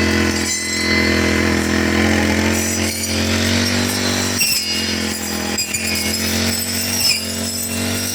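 Four-stroke brush cutter engine running steadily while cutting grass, its pitch rising slightly a few seconds in.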